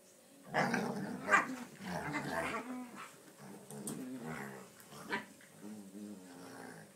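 Two young dogs, a lurcher and an Airedale, play-fighting and growling at each other. It breaks in about half a second in with loud snarling, then goes on as lower, drawn-out play growls.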